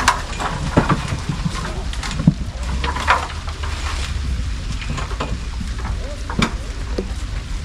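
Rain falling with wind rumbling on the microphone, and scattered sharp taps throughout.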